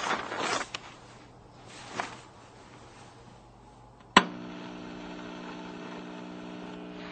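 A few faint knocks early on, then a sharp click about four seconds in and a steady electrical hum: a radio being switched on.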